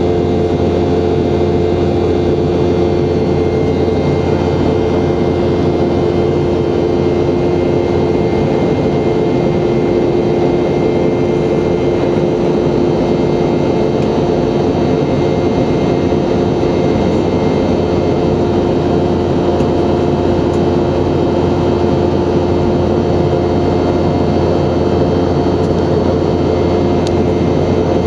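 Boeing 717-200's Rolls-Royce BR715 jet engines running with a steady drone and a few steady hum tones, holding the same level throughout.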